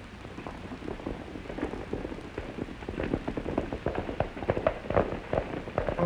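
Horse hoofbeats at a gallop on a dirt street, a dense patter of knocks that grows steadily louder as the rider approaches.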